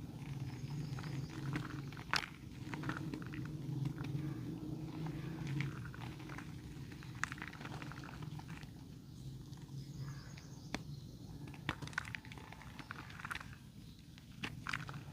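Dry red mud crumbling, an irregular series of sharp crunchy crackles and small snaps, over a steady low hum.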